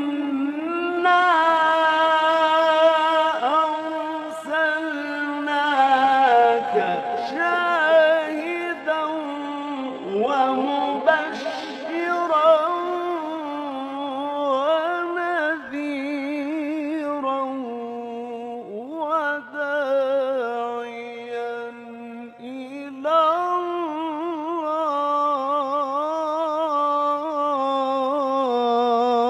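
A man reciting the Quran in the melodic, chanted tajweed style, drawing out long notes with wavering ornaments and pausing briefly twice past the middle.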